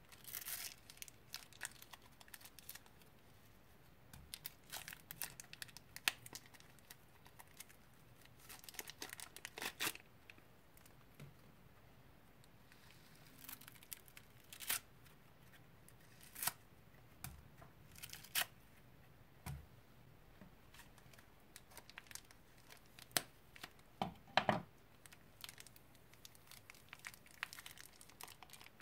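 Clear plastic piping bag crinkling and blue foam-bead slime crackling as hands squeeze it out of the bag and knead it. The sound comes in irregular clusters of small crackles and clicks.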